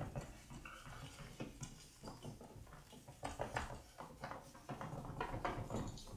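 Whiteboard eraser wiping marker drawings off a whiteboard: a series of faint, short scrubbing strokes, coming more thickly in the second half.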